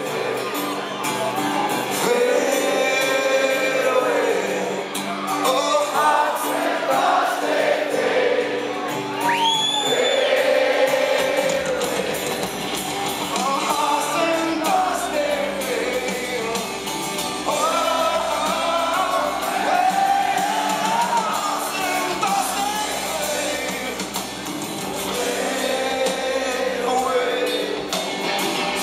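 Live rock band playing through a concert PA, heard from the audience: electric guitars, bass guitar and drums under a male lead vocal, with the crowd singing along. A thin rising whistle cuts through for about a second roughly ten seconds in.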